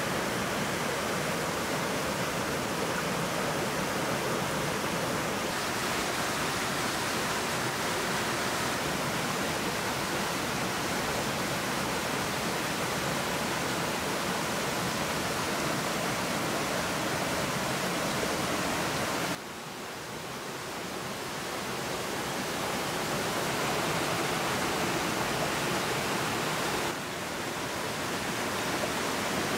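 Steady rush of a stream running over small cascades. The level drops suddenly about two-thirds of the way through and swells back over the next few seconds, with a smaller dip near the end.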